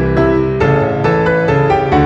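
Background music led by piano, with a new note or chord about every half second.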